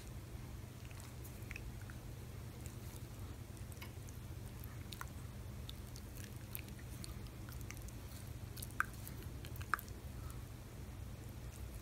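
Shiba Inu sucking and nibbling a person's finger: soft wet smacking and clicking from its mouth, with two sharper clicks near the end.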